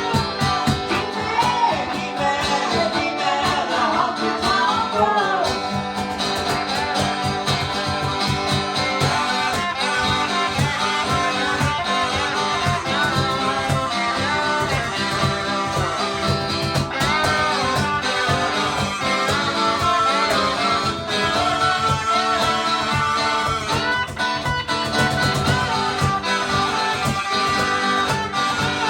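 A small band playing a country-rock song: acoustic and electric guitars over a steady cajón beat, with singing.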